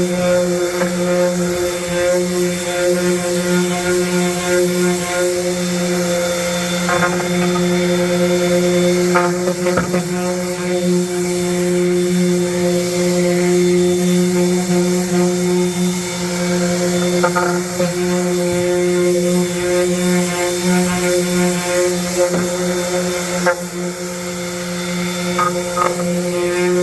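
Festool palm sander running steadily with a constant motor hum, screening the old finish on stair treads ahead of a recoat. A few short knocks are scattered through it.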